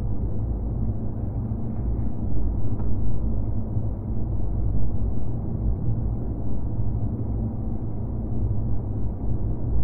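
Empty-city ambience sound effect: a steady low rumble, with a faint click about three seconds in.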